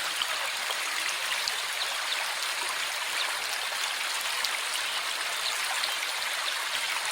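Water of a small river flowing steadily, a continuous rushing babble with small scattered splashy ticks.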